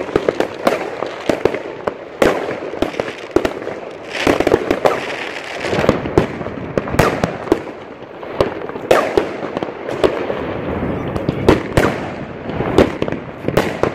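Fireworks going off: aerial shells and firecrackers popping in an irregular run of sharp bangs, clustered several to a second at times, with crackling in between.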